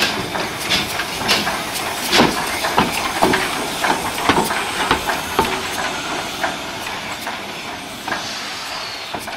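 Small steam tank locomotive moving slowly past, hissing steam, with sharp knocks about twice a second that thin out and fade a little after about six seconds.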